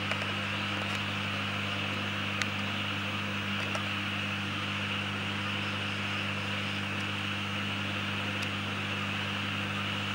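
Steady electrical mains hum, low and even, with a hiss over it, from the homemade FM transmitter's powered setup. A single sharp click comes about two and a half seconds in.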